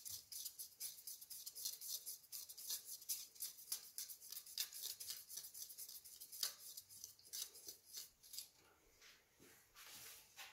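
Faint, rapid clicking, about seven clicks a second, as a finger spins a rubber-band model plane's plastic propeller to wind its rubber-band motor. The clicking stops a little over eight seconds in.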